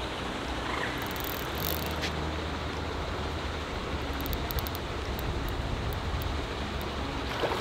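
Steady wind rushing over the microphone with a fluctuating low rumble, and a few faint ticks in the middle.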